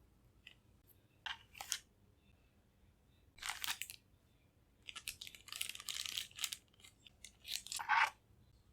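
Packaging being handled and crinkled, rustling in four short bouts.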